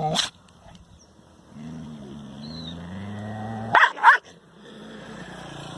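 A dog barks once, growls low for about two seconds, then gives two loud barks in quick succession.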